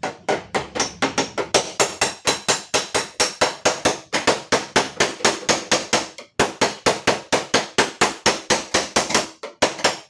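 Hammer blows on a Toyota Calya's steel door skin, beating out a deep dent, at a fast, even pace of about five strikes a second with a brief pause about six seconds in.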